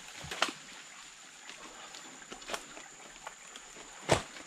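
Footsteps and snapping twigs as hikers scramble through dense jungle brush and fallen branches, with a few sharp cracks and a heavier thump near the end, over a faint steady high-pitched hum.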